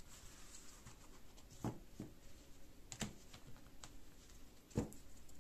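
Oracle cards being gathered up and stacked on a cloth-covered table: a few sharp taps of card on card, the loudest near the end.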